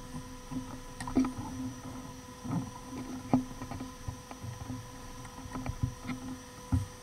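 Scattered metallic clicks and knocks of a wrench working the 16 mm bolt out of a starter motor, irregularly spaced, over a steady low hum.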